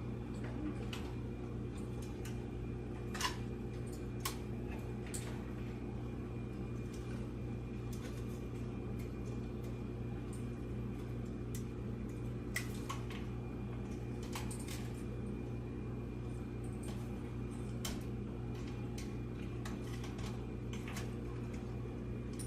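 Steady low fan-like hum throughout, with scattered light clicks and taps of cables and plastic connectors being handled and fitted inside a PC case.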